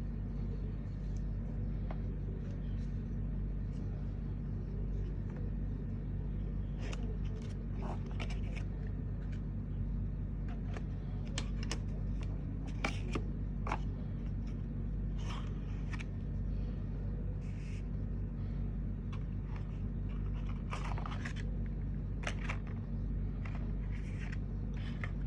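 Scattered light clicks and rustles of a small box and its contents being handled during an unboxing, over a steady low electrical hum.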